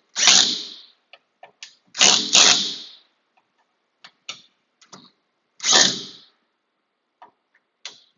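Screws being driven into a new door spring hinge: four short bursts of rapid mechanical clicking, with small clicks and taps between.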